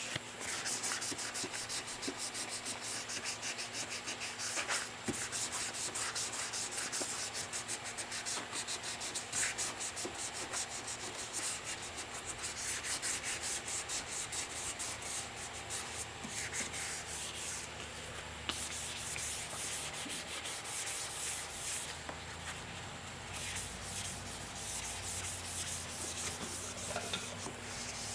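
Continuous sanding on car bodywork: abrasive paper scratching rapidly over a body panel as it is prepared for paint.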